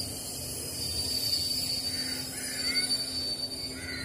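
Passenger train running slowly, heard from aboard: a steady rumble of wheels on the track with a steady low hum. Faint short chirps come about two seconds in and again near the end.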